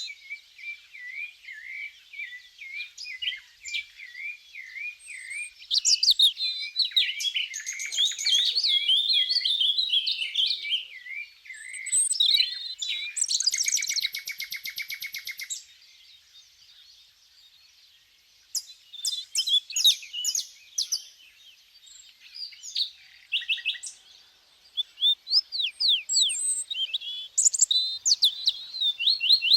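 Small songbirds chirping and singing in quick, high-pitched phrases. Runs of repeated whistled notes and dense overlapping chirps give way near the middle to a buzzy trill, then a brief lull, before sharp chirps resume.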